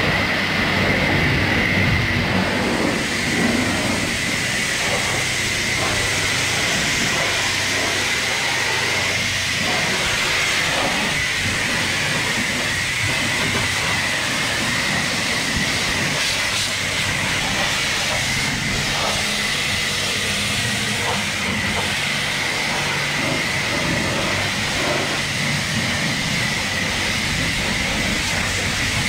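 Self-serve car wash high-pressure wand spraying water and foam onto a car body: a steady hiss with a constant high-pitched whine running under it.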